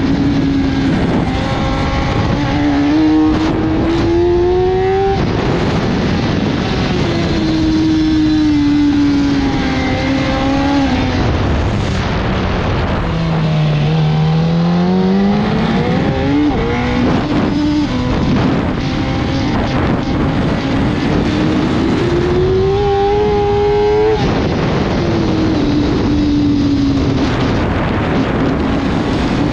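1000 cc superbike engine at racing speed: the revs climb in steps with short breaks at the gear changes, fall away to their lowest about halfway through as the bike slows for a corner, then climb again through the gears. Wind and road noise hiss under the engine.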